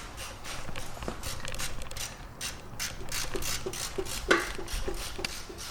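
Hand ratchet wrench clicking in quick runs of several clicks a second as a bolt is turned.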